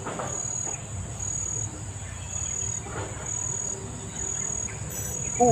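Insects chirping: a steady shrill high-pitched drone with a brighter pulse about once a second, over the low rush of a fast-flowing river.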